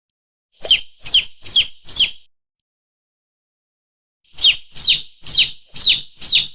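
A lure call for mongoose and monitor lizard: a high, shrill chirp repeated quickly, each note dropping in pitch. It comes as four notes, a pause of about two seconds, then six more.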